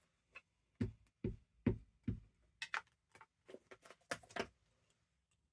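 About a dozen light taps and knocks on a tabletop, irregular and a little apart, stopping near the end: a rubber stamp being tapped on an ink pad and pressed onto paper.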